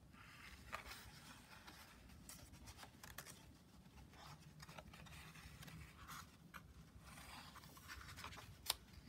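Faint rustling and scraping of a picture book's paper pages being handled and turned, with a few soft clicks and one sharper click near the end.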